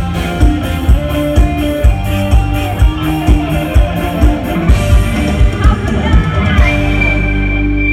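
Live luk thung/molam band playing an instrumental passage: a drum kit keeps a steady beat of about two strokes a second under guitar and other instruments. About six and a half seconds in the beat stops and the band holds a long final chord.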